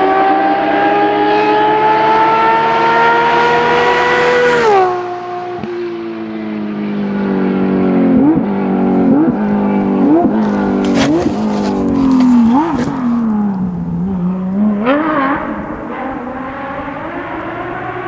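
Porsche 997 GT3 rally car's flat-six engine pulling hard, its pitch rising steadily for about four seconds before dropping sharply as the car lifts and passes. It then brakes down through the gears with about five quick throttle blips and a few sharp cracks from the exhaust. It accelerates away again and fades.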